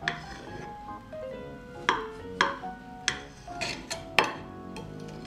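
A kitchen knife taps sharply against a serving plate as it cuts through a sponge cake, about five clicks in the second half, over soft background music.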